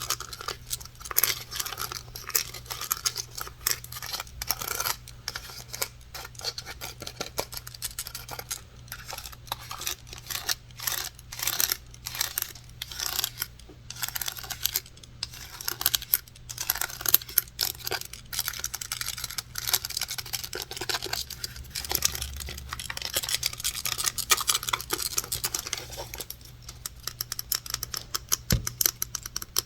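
Rapid tapping and scratching on objects: a dense, uneven run of small clicks mixed with scratchy rustling.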